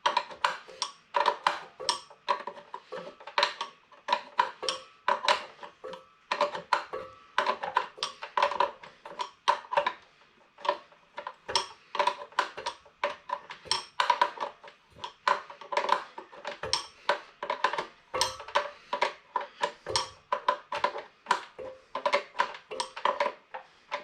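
Metal clinking and tapping as wrenches and brass fittings knock against an air compressor's regulator manifold while it is being unscrewed: many irregular sharp clicks, each with a short ring.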